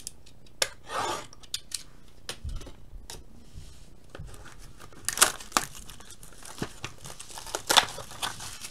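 Plastic shrink-wrap on a sealed box of trading cards being slit and torn off, with crinkling and scattered sharp rips, the loudest about five and eight seconds in.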